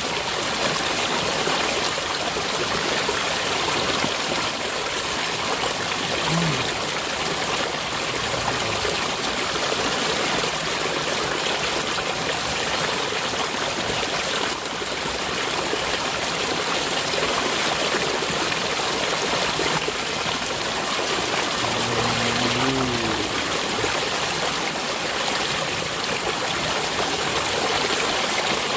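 Steady rush of water flowing and trickling in a small irrigation ditch, even and unbroken throughout.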